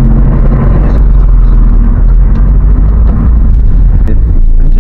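Car interior noise picked up by a dashcam microphone: a loud, steady low rumble of engine and road noise while driving.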